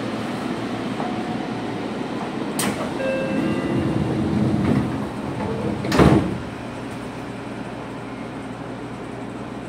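Seibu 2000 series train standing at a platform while its sliding passenger doors work. A click comes first, then a rumble, then the doors strike their stops with a loud thud and a burst of air about six seconds in. A steady low hum follows.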